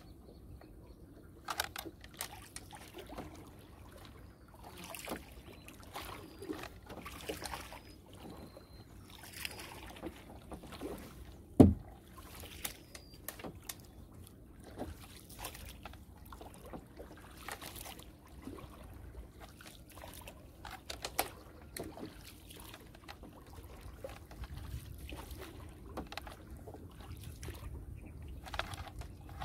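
Fishing net being paid out from a small boat into the river: water trickling and splashing, with scattered light knocks and one sharp knock about twelve seconds in.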